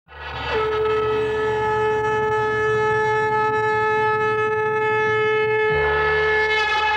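A conch shell (shankha) blown in one long note, sliding up slightly as it starts and then held steady for about six seconds before fading, over a low steady hum.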